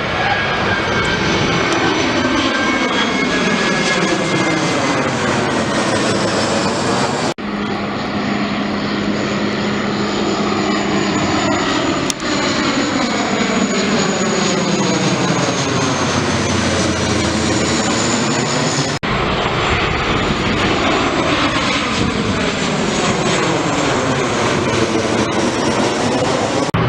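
Airliners on landing approach passing low overhead, engines running loud with a high whine that slides down in pitch as each goes by, and a sweeping phasing sound. The sound breaks off abruptly twice, about seven and nineteen seconds in, where one aircraft gives way to the next.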